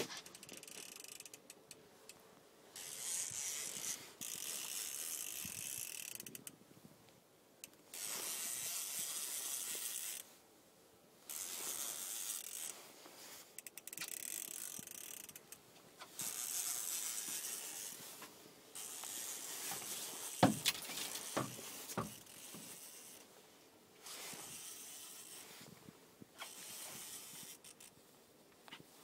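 Fishing reel being cranked in repeated bursts of a couple of seconds with short pauses, its gears whirring as a striped bass is reeled in on a bent rod. A few sharp clicks come about two-thirds of the way in.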